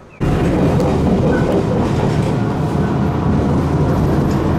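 Iyo Railway train running on its line, heard aboard the carriage: a steady low rumble of wheels on rail and running gear that starts suddenly a moment in.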